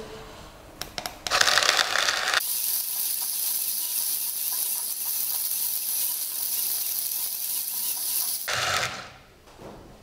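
The built-in electric burr grinder of a Beanque 3-in-1 portable coffee maker grinding coffee beans. It starts about a second in with a coarser, fuller sound that changes after about a second into a steady high whir, then cuts off shortly before the end.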